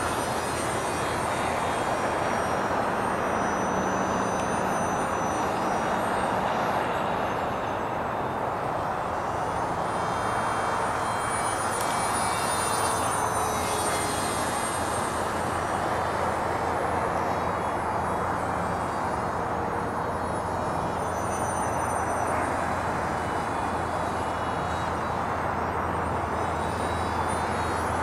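Small electric motor and pusher propeller of a foam RC parkjet in flight. It gives a thin, high whine whose pitch slides up and down several times with throttle and passes, over a steady rushing noise.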